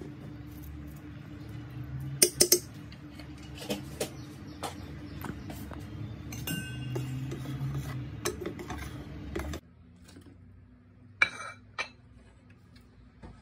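Metal utensils clinking against a stainless-steel cooking pot, with a quick cluster of sharp clinks about two seconds in and a brief ringing clink in the middle, over a low steady rumble. The rumble cuts off suddenly about two-thirds of the way through, and two more clinks follow as tomato goes into the pot.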